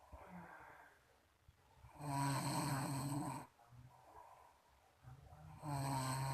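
A person snoring in their sleep: two long, rattling snores on the in-breath, one about two seconds in and another starting near the end, with quieter breathing out between them.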